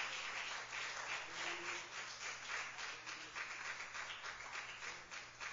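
A church congregation clapping their hands in a round of praise, a dense patter of claps that gradually dies away.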